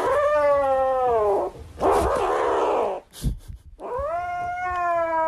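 Grey kitten yowling: two long drawn-out calls, the first slowly falling in pitch, with a short breathy, hissing sound between them.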